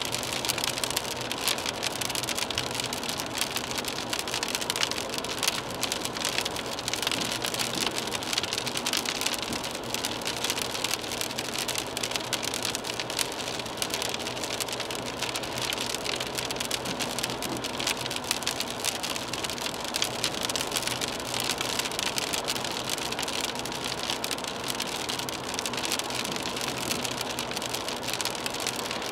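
Rain pattering on a car's windshield, a dense steady ticking of drops heard from inside the moving car, over the hiss of tyres on the wet road.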